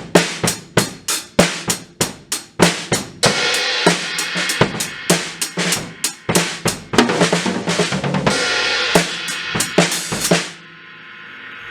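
Acoustic drum kit played in fast fills, with snare and bass drum strikes and crash cymbals ringing through much of it. About ten and a half seconds in the playing stops and a cymbal is left ringing out quietly.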